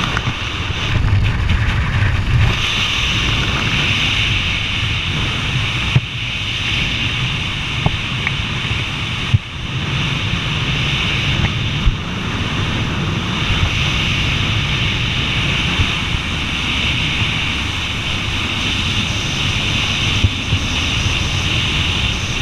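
Steady rush of wind over the camera's microphone during parachute canopy flight, with a few brief knocks.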